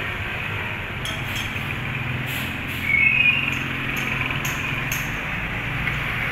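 Steady low motor hum over background noise, with a short high-pitched chirp about three seconds in and a few faint clinks.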